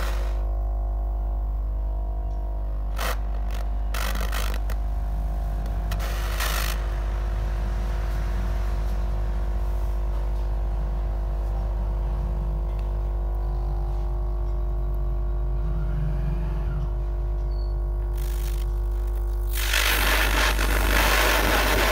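Steady low hum with several fixed tones while a jeweller's gas torch burns with a small blue flame, with a few sharp clicks in the first seven seconds as its valve is handled. Near the end a loud, noisy sound takes over.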